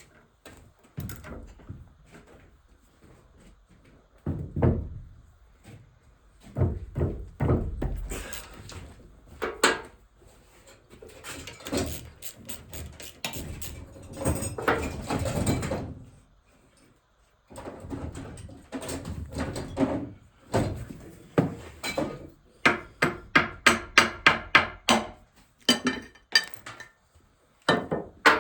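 Hand tools working on a manual transmission being torn down: metal clanks, knocks and scraping as bolts and parts are worked loose, with a run of sharp, evenly spaced clicks, about three or four a second, late on.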